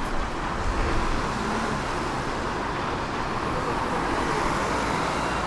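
Road traffic passing: a steady hum of car and tyre noise that swells slightly about a second in.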